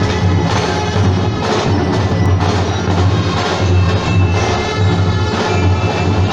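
Drum and bugle corps playing a march in the street, with drums beating a steady rhythm and brighter pitched percussion over it.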